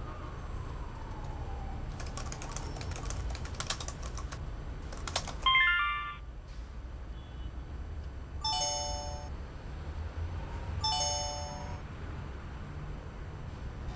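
Laptop keyboard typing in short runs of clicks, then instant-message chimes: a quick rising chime about five and a half seconds in, the loudest sound, and two short chord-like alert tones about eight and a half and eleven seconds in.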